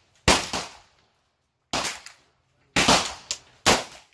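Four gunshots at irregular intervals, each a sharp crack with a short echoing tail, from rifles firing on a shooting range.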